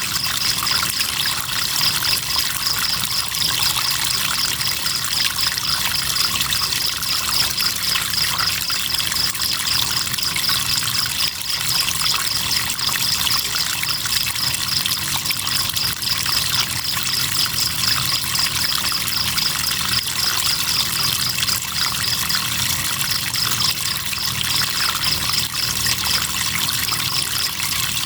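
River water trickling and flowing steadily, with crickets chirping in a high, even, rapid pulse over it.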